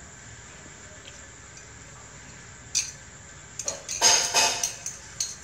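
Metal spoon and chopsticks clinking against ceramic plates as a plate is picked up from a wooden floor: one sharp click about halfway through, then a burst of clattering about a second later.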